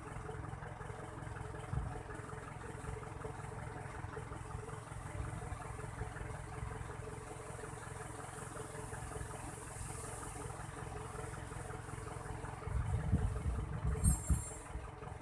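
Vehicle engine idling steadily, with a few low knocks near the end.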